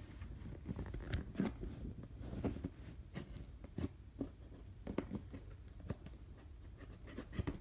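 Scattered light clicks, snips and scrapes of hands working a stubborn package open with scissors, over a low steady hum.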